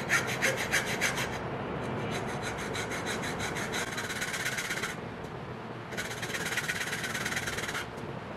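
Hacksaw blade cutting a plywood block clamped in a bench vise, in quick back-and-forth rasping strokes. There are three runs of sawing with short pauses between them, and the sawing stops shortly before the end.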